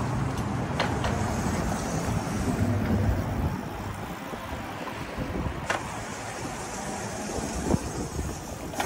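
Razor electric scooter with a chain-driven brushed DC motor being ridden on a concrete sidewalk: the motor and chain drive running and the wheels rolling, with about three sharp clicks.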